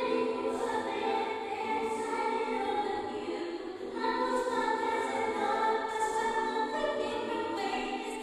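Background music: a choir singing slow, held chords, changing chord about four seconds in.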